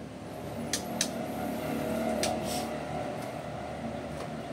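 A low, steady engine-like drone that swells about two seconds in and then eases off, with a few sharp clicks in the first half.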